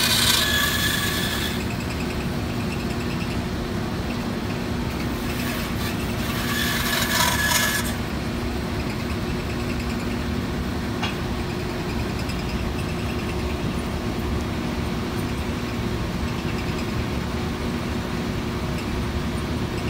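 Bandsaw running with a steady hum, its blade cutting through a block of wood at the very start and again for about three seconds around a third of the way in.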